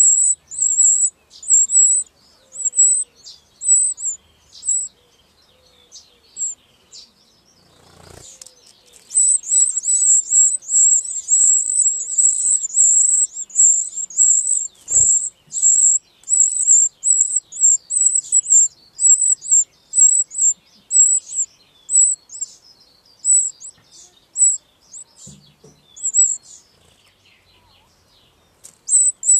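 Wren nestlings begging: rapid, high-pitched cheeping in short bursts that swells into a near-continuous chorus about nine seconds in as a parent comes to feed them, then thins out again. A low thump about eight seconds in and a sharp click about fifteen seconds in.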